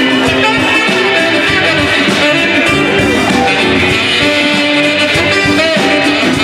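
Live band playing an instrumental passage of a song: strummed and picked guitars over drums, with saxophone.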